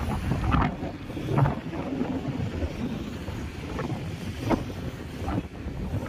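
Wind buffeting the microphone: a constant low rumble with several stronger gusts.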